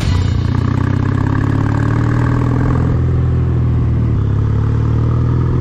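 Kawasaki W800 parallel-twin engine running as the motorcycle is ridden along. The engine note climbs a little over the first two seconds, then holds steady.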